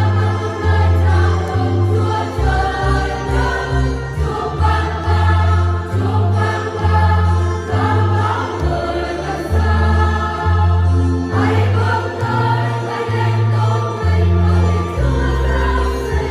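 Church choir singing a Vietnamese hymn in parts, over instrumental backing with a prominent bass line that steps from note to note.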